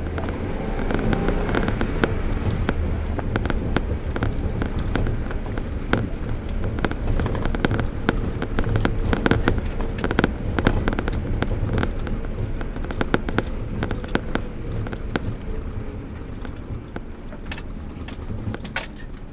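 Car driving over rough paddock ground, heard from inside the cabin: a steady low engine and road rumble with a rapid, irregular run of sharp knocks and rattles from the bumpy ground. The knocks are densest in the middle and thin out towards the end.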